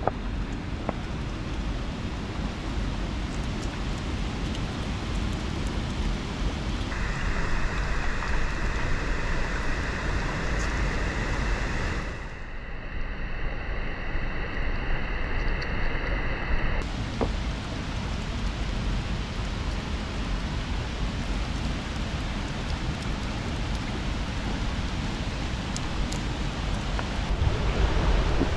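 Steady rush of a shallow mountain river running over rocks, mixed with falling rain.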